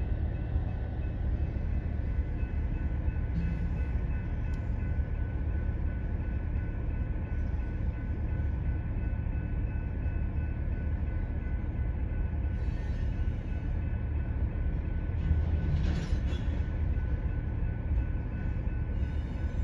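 A freight train's cars rolling past on the track, a steady low rumble of wheels on rail with faint steady high ringing tones above it.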